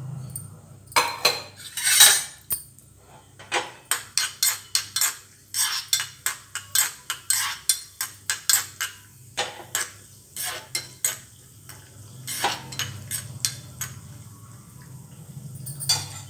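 A metal spoon tapping and scraping against a small steel tempering ladle, stirring cashews as they fry in ghee, with a quick run of clinks several times a second over a low sizzle. The tapping stops about three-quarters of the way through.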